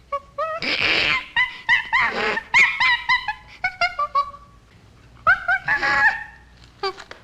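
Chimpanzee whimpering: a quick run of short high-pitched whimpers and squeaks mixed with breathy cries. It comes in two bouts with a pause of about a second between them.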